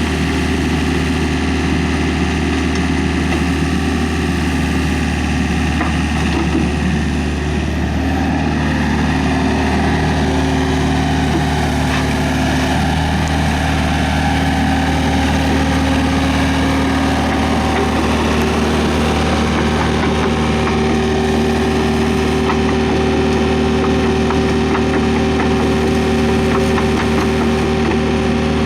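Hyundai R555-7 excavator's diesel engine running with a steady drone; its note shifts and settles into a new steady pitch about a quarter of the way in.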